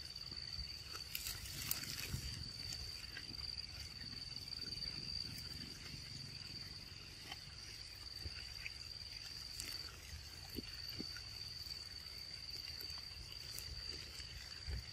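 A steady, high-pitched insect drone with a short break about ten seconds in, over a low rumble and a few faint clicks.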